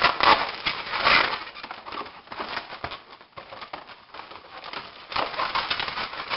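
Latex twisting balloons rubbing and squeaking against each other as they are twisted and wrapped together, a dense crackly scratching that is busiest near the start and again near the end.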